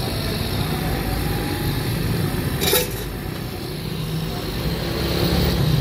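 A steady, low motor-like drone, with one sharp clack about two and a half seconds in.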